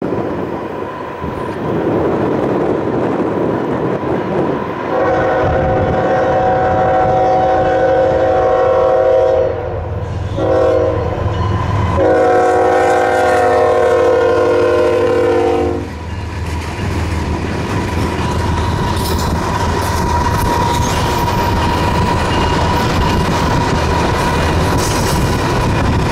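Norfolk Southern freight train's diesel locomotives approaching and passing a grade crossing. The lead locomotive's horn sounds a long blast, a short one and another long one, from about five to sixteen seconds in, as the crossing warning. The locomotives' engines and the wheels on the rails run on after it.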